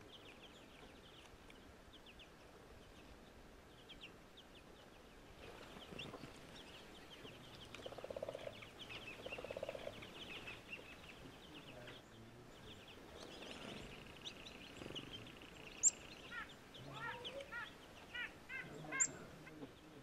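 Small wintering songbirds chirping and twittering. Two lower, honk-like calls come about eight and nine and a half seconds in, and a quick run of repeated harsh notes comes near the end, with two sharp clicks.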